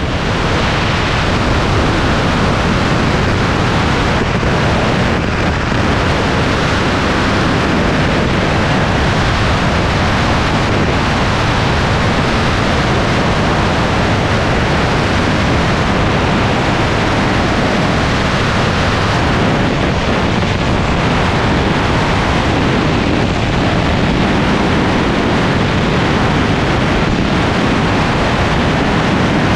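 Steady rush of airflow over a wing-mounted action camera on an Aeroprakt A22 light aircraft in flight, with the engine and propeller drone blended into it.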